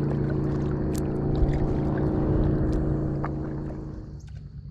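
An airboat passing: its engine and propeller run steadily, then fade away about four seconds in.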